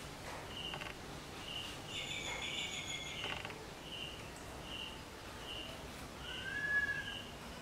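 Background animal calls: a short, high chirp repeating about every second, with a brief high call about two seconds in and a louder rising-then-falling call near the end.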